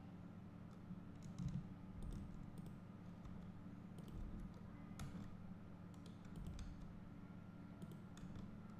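Faint, scattered clicks of a computer mouse and keyboard over a steady low hum.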